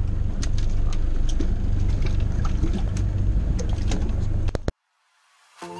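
Low, steady rumble of a fishing boat's engine under wind and water noise, with scattered light clicks and knocks. It cuts off abruptly a little under five seconds in, and music starts near the end.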